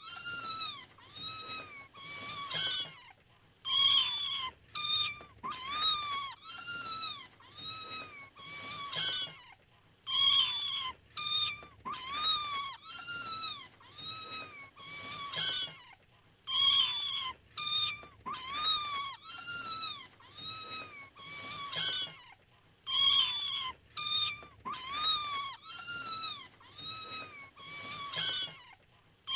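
Kittens mewing over and over: short, high-pitched calls that rise and fall, coming in quick runs of several with brief pauses between.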